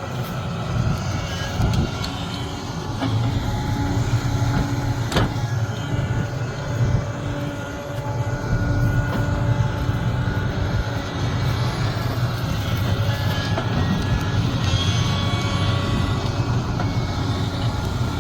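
Sumitomo SH370LHD-6 excavator's diesel engine running steadily. It swells in level a few times, and a single sharp click comes about five seconds in.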